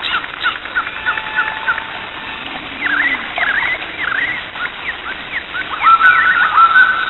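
Birds chirping and calling: a scatter of short, quick chirps, then from about six seconds in a run of repeated whistled notes, each sliding up and then holding steady.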